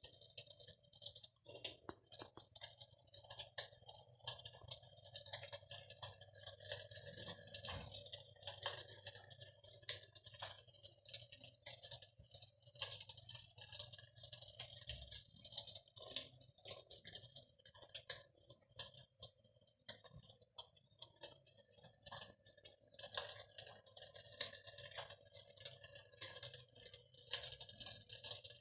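Electric fireplace hearth playing a soft, irregular crackling like burning logs, dense small pops and clicks throughout.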